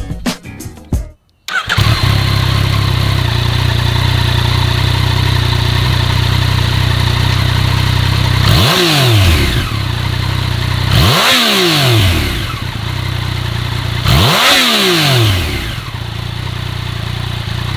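2014 Yamaha MT-09's 847 cc inline three-cylinder engine with its stock exhaust, idling steadily and blipped three times, each rev rising and falling back to idle. Really quiet, super quiet.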